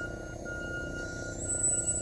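Sentry 3V8 outdoor warning siren sounding a steady high tone that dips briefly about once a second as its rotating head sweeps past.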